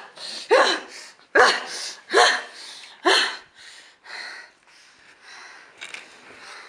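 A woman's sharp, cry-like vocal gasps, four of them in the first three seconds, each falling in pitch. They are followed by quicker, softer breathy panting.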